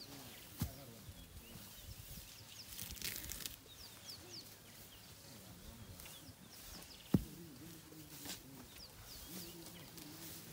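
Small birds chirping over and over in the bush, with rustling, and two sharp snaps about half a second in and about seven seconds in, the second the louder. Elephants are feeding from a bush and the grass close by.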